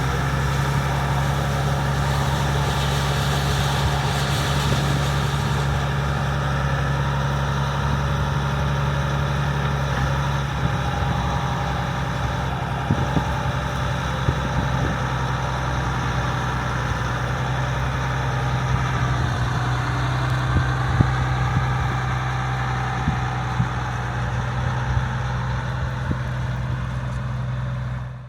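International Harvester 1460 combine running steadily at work in corn: a constant diesel engine drone with several steady machinery whines layered above it.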